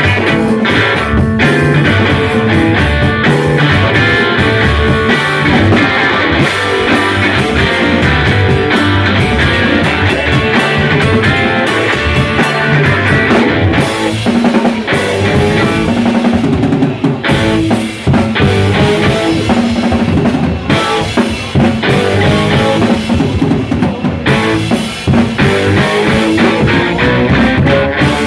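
Live rock band playing loudly: electric guitars over a steady drum-kit beat.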